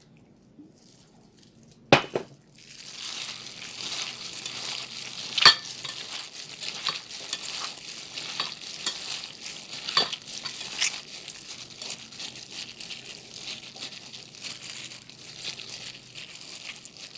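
A plastic-gloved hand mixing seasoned steamed young chili peppers in a metal bowl: continuous crinkling of the glove and squishing of the food, with scattered clicks. A knock sounds against the bowl about two seconds in as the mixing starts, and there is a louder one about five seconds in.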